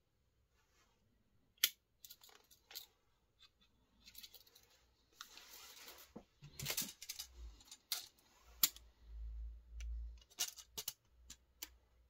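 Victorinox Ranger 78 Swiss Army knife being handled, its tools opened and snapped shut with several sharp clicks, and a short scraping rustle about five seconds in.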